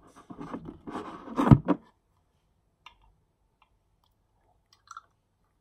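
A plastic cup and plastic bottle being handled: rubbing and knocking in the first two seconds, then almost silent with a couple of faint clicks as water is poured from the cup into the bottle.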